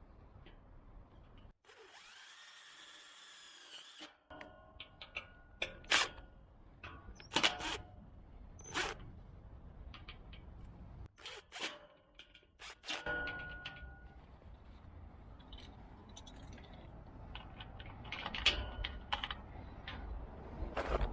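A power drill running in two short bursts of a couple of seconds each, its pitch rising and falling, with sharp clicks and knocks in between.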